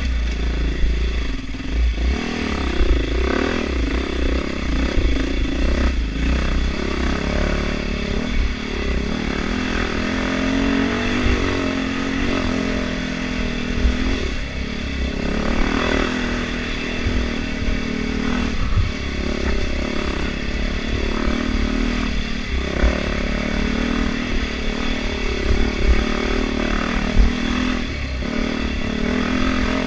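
Dirt bike engine running as it is ridden along a rocky trail, the revs rising and falling with the throttle all the way through. Heavy low wind rumble on the microphone lies under it.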